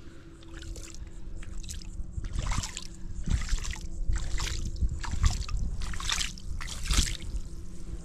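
Shallow water splashing around a beached shark's tail at the shoreline: a run of irregular splashes with low thuds, about one or two a second, growing louder after the first couple of seconds.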